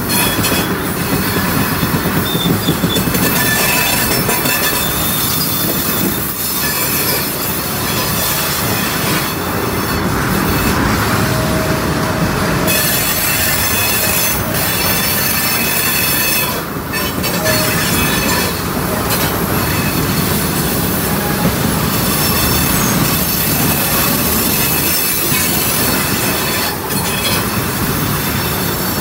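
Railroad tank cars rolling slowly past at rail level: steady wheel-on-rail rumble with squealing from the wheels.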